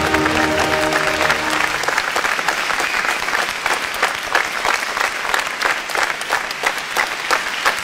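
Music ends on held notes in the first two seconds and gives way to audience applause.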